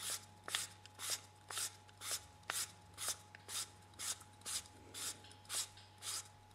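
Faint rhythmic scraping of a lightsaber hilt's threaded back section being screwed closed by hand, about two turning strokes a second, some with a small click.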